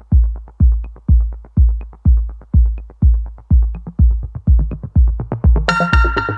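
Background music: an electronic beat with a steady kick drum about twice a second and quick hi-hat ticks between; a bright keyboard melody comes in near the end.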